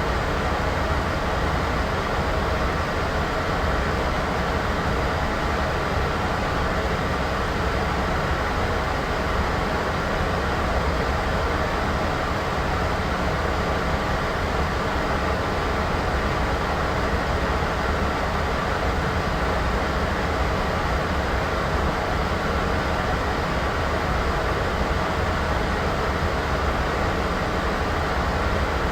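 Steady, unchanging static noise, strongest in the low and middle range and thinning out above about 2 kHz. It is a white-noise background track for video editing.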